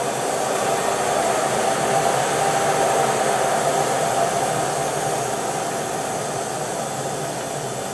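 Electric forge blower running, forcing air up through the firepot into the coal fire: a steady rushing blast of air and flame that swells slightly over the first few seconds, then eases a little.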